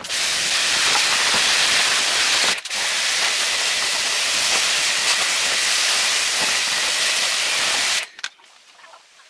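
Loud steady hiss of a high-pressure jet, broken off for a moment about two and a half seconds in and cut off about eight seconds in.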